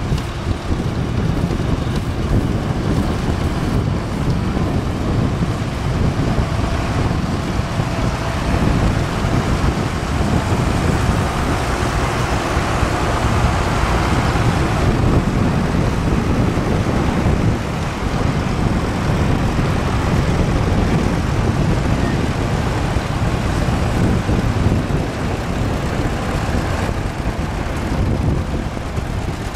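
Vintage farm tractors' engines running as a line of them drives past on a gravel road, with wind buffeting the microphone; louder for a few seconds about halfway through.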